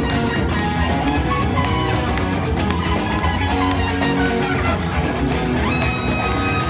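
Live rock band with a trumpet playing a melodic solo line over strummed acoustic guitar, electric bass and drums.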